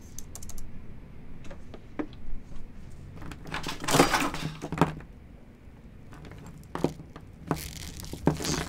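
A tangle of network cables with plastic plugs being dragged out of a table's cable box, rattling and clattering against the table, loudest a few seconds in; then sharp clicks and knocks of plugs being handled on the tabletop near the end.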